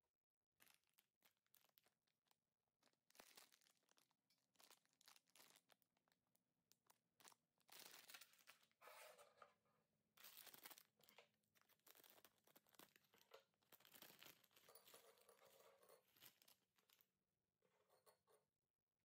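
Faint crinkling and tearing of a plastic bag of Lorenz Saltletts pretzels being handled and opened, with many sharp clicks of hard pretzels set down on a ceramic plate.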